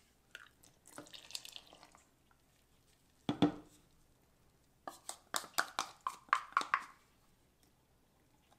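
Metal spoon scraping and tapping against a small plastic tub and a clear plastic container while rinsing sourdough starter out with water: a short swish about a second in, a sharp knock about three seconds in, then a quick run of clinks.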